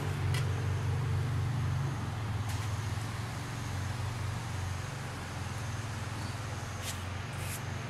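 A motor running with a steady low hum, and a few light clicks over it.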